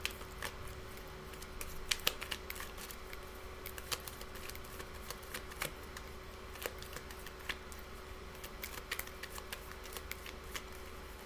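Tarot cards being shuffled and handled by hand: a run of soft, irregular clicks and flicks, a little louder about two seconds in. A faint steady hum runs underneath.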